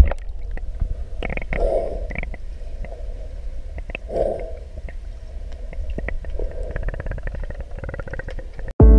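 Muffled underwater sound picked up by a camera submerged in a swimming pool: a steady low rumble with scattered small clicks, and two short muffled swells of sound about two and four seconds in. It opens with a sharp splash as the camera goes under.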